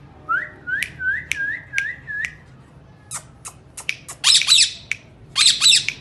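Indian ringneck parakeets calling: a quick run of about six short, repeated whistled notes in the first two seconds, then a few sharp clicks and two loud, harsh screeches in the last two seconds.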